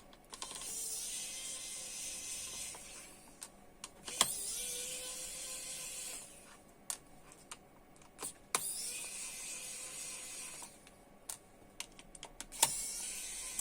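A small motorised tool running in four short bursts of about two seconds each, with clicks and taps between the runs.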